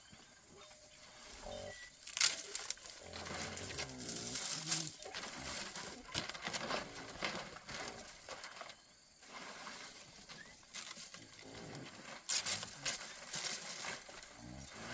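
Farm animals calling, with wavering drawn-out cries in the first few seconds, mixed with rustling and sharp knocking noises.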